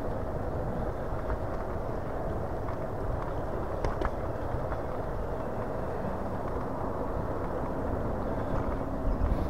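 Steady riding noise from a Hiboy S2 Pro electric kick scooter under way: a low rumble of wind and tyres, with a thin steady whine running throughout. A couple of faint clicks come about four seconds in.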